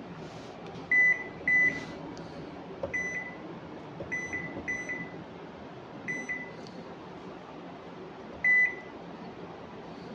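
Candy top-loading washing machine's control panel beeping as its buttons are pressed: about nine short high beeps, some single and some in quick pairs, the loudest about a second in and again near the end, over a low steady hum.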